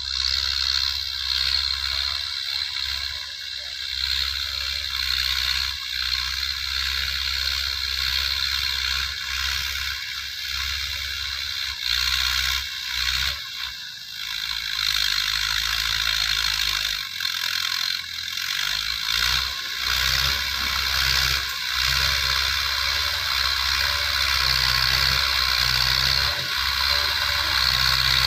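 Massey Ferguson 185 tractor's diesel engine running under load while pulling a rotary tiller through the soil, with a steady mechanical whine and clatter. It grows louder near the end as the tractor comes closer.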